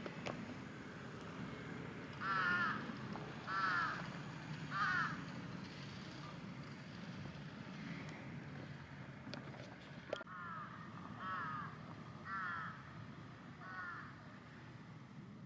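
A crow cawing: a series of three harsh caws, then a second run of five caws about ten seconds in, over a steady low background noise.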